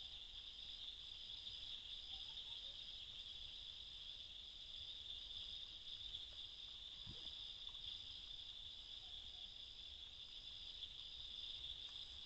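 Night insects chirping in a steady chorus: a continuous high drone with a higher note pulsing evenly above it. A single faint low knock about seven seconds in.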